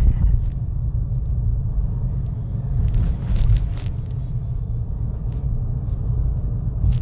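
Low, steady rumble of a car's engine and tyres heard from inside the cabin while driving slowly, with a brief louder rush of noise about three seconds in.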